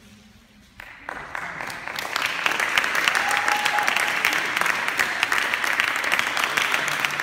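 Audience applauding: clapping starts about a second in and quickly builds to steady, dense applause.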